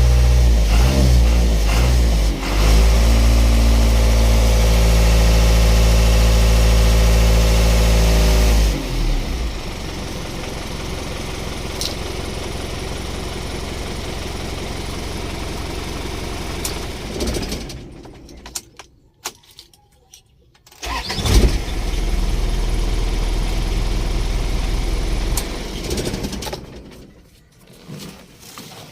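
Isuzu Elf truck's diesel engine running steadily, then dropping to a lower steady note and shutting off. About two-thirds of the way in it cranks and fires at once, idling a few seconds before stopping. The quick start shows the hard starting is cured now that the loose, dirty battery terminal has been replaced.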